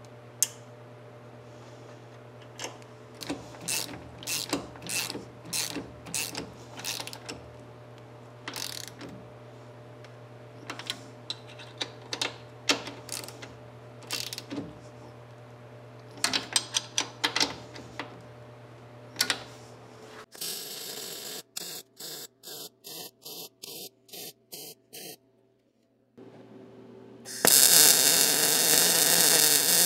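A socket ratchet clicking in short runs as bolts are tightened down through a steel strap on a pickup's frame rail. Later a run of short, evenly spaced bursts, then about 27 seconds in a loud, steady welding noise starts as the strap is welded to the frame.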